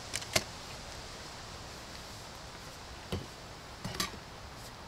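Camping gear being unpacked: a few short, sharp clicks and knocks as a folding tripod and a steel thermos are taken out of a backpack and handled over birch logs. The loudest click comes about a third of a second in, with a few more near the end.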